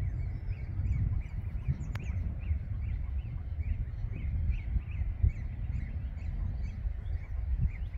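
Greylag goslings peeping, short high peeps several times a second, over a steady low rumble of wind on the microphone. A single sharp click about two seconds in.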